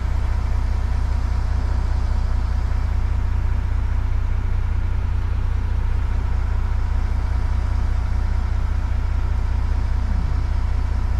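Simulated heavy truck diesel engine idling steadily in a truck-driving game, a deep even hum with no revving.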